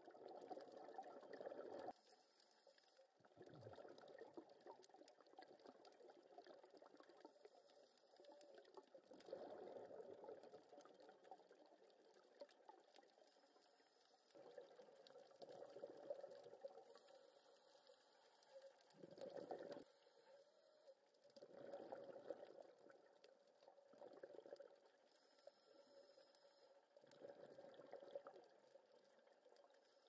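Scuba regulator exhaust bubbles, gurgling up in a separate round every few seconds as the diver breathes out, heard muffled through the camera's underwater housing.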